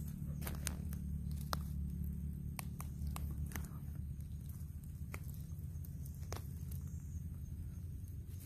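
Footsteps and handling in dry forest leaf litter: scattered sharp crackles and clicks at irregular intervals, over a steady low drone.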